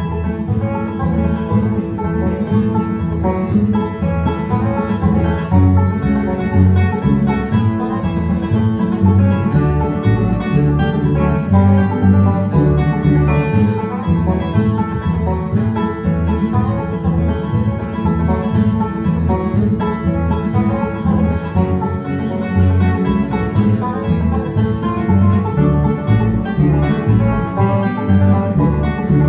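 Bluegrass music with banjo and guitar, playing steadily throughout.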